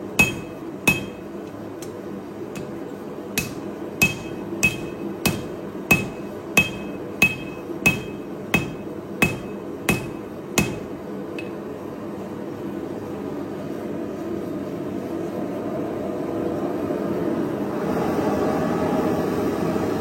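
Hand hammer striking a hot layered steel billet with light, evenly spaced blows, about one and a half a second, each with a short metallic ring: the initial taps that set the forge welds. The blows stop about eleven seconds in, and a steady rushing noise, likely the forge, grows louder after.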